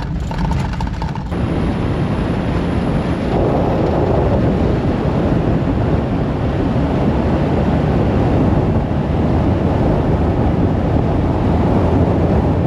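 A heavy 4WD driving along a dirt track: a steady low rumble of tyres and engine that gets louder about a second in.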